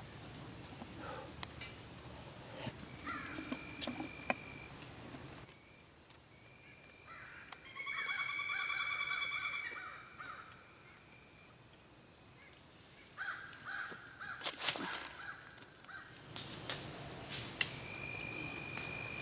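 A steady high-pitched trill of crickets and other insects, with wild birds whistling now and then; the loudest birdsong comes about 8–10 seconds in. A few sharp clicks or knocks, the loudest about three-quarters of the way through.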